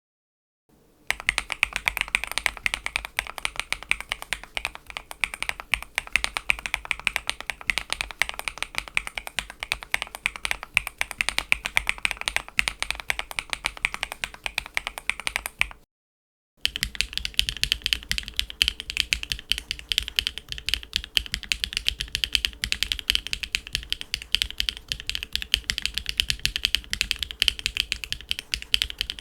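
Rapid typing on a mechanical keyboard fitted with Sillyworks x HMX Hyacinth V2 switches, a dense run of key clacks. It stops briefly about halfway through, then a second keyboard is typed on with a higher-pitched, clackier sound.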